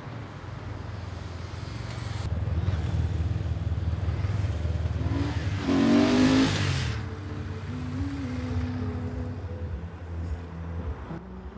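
Motor traffic: a steady low rumble, with one vehicle passing loudly about six seconds in.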